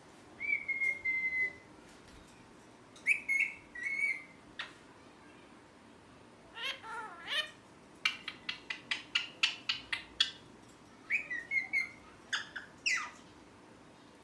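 Pet ringneck parrot whistling and chirping: a held, slightly falling whistle, then groups of short chirps and a quick run of sharp chirps at about five a second.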